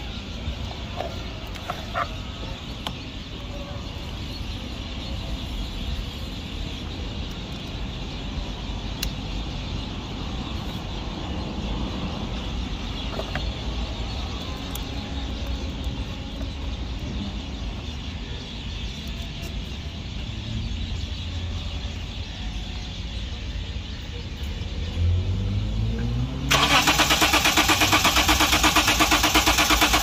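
Steady low background noise, then near the end a rising hum as the starter engages and the Lexus IS300's engine cranks loudly with a rapid, even pulse but does not fire. It is a crank-no-start: the fuel pressure gauge on the rail shows no pressure at all.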